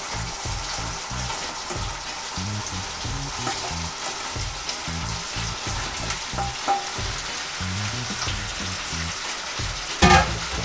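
Sweet and sour sauce sizzling and bubbling in a nonstick frying pan as pieces of fried barracuda are tipped in from a bowl, with a few light clicks. A brief louder sound comes just before the end.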